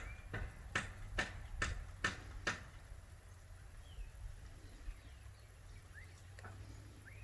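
Tropical birds calling. A run of about six sharp, evenly spaced call notes comes at roughly two to three a second, stops after a couple of seconds, and then fainter scattered chirps go on.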